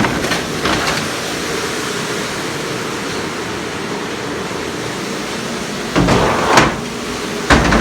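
Hobart commercial dishwasher running its wash cycle: a steady rush of spraying water with a faint steady hum. Two short clatters come near the end.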